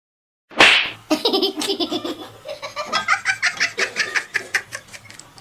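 A sharp smack about half a second in, then a person laughing hard in quick repeated bursts that die down near the end.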